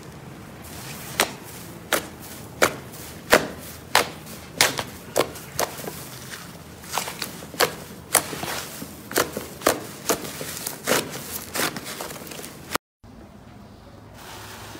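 Fingers poking into a thick butter slime, each poke giving a sharp pop, about one or two a second, that stops abruptly near the end.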